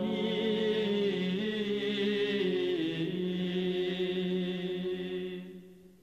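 Men's Orthodox monastery choir singing a long, sustained chord in several parts, the voices shifting notes as it is held. It fades away shortly before the end.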